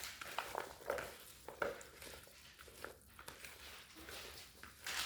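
Faint kitchen work: a few scattered light clicks and knocks of utensils and dishes over a low background hiss.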